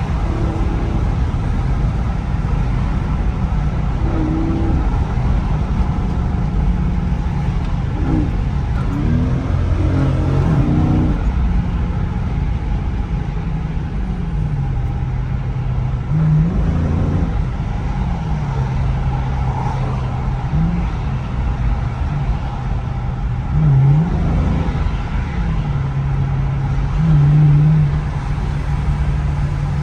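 2014 Dodge Charger R/T's 5.7-litre HEMI V8 under way, its engine note sliding down and then jumping back up again and again. Short, louder rev surges come with hard downshifts, several of them in the second half.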